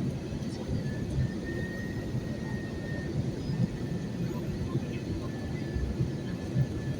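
Steady low rumble of a jet airliner's cabin in flight: engine and airflow noise, with a faint high whine that comes and goes.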